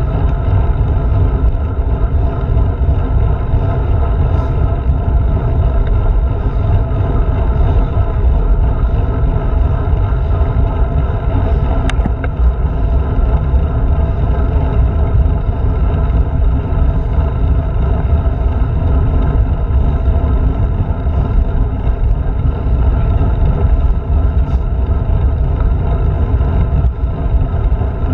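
Steady low rumble of wind buffeting a handlebar-mounted GoPro and road vibration as a road bike rolls along at speed. A single sharp tick comes about twelve seconds in.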